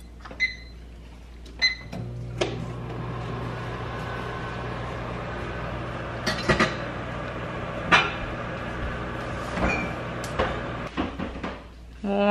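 Microwave oven: two keypad beeps as the time is set, then the oven hums steadily for about nine seconds while heating and stops a second before the end, with a few sharp clicks and knocks along the way.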